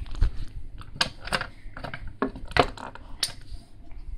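Hands handling a small cardboard gift box as it is being opened: a handful of sharp, irregular clicks and taps.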